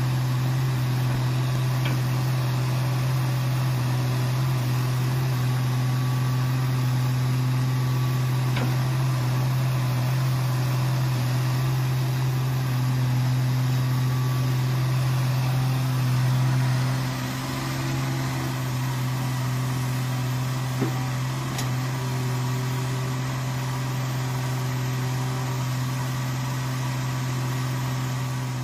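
Sumitomo hydraulic excavator's diesel engine running steadily with a low hum as the machine digs, easing a little about 17 seconds in. There are a few faint ticks.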